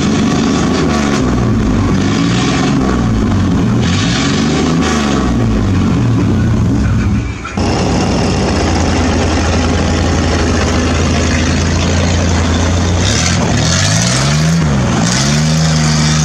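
Pickup truck engine revved repeatedly, its pitch climbing and dropping several times. Partway through, the sound changes abruptly to the engine running under way at a steady note, with a short rev up and down near the end before it settles at a higher pitch.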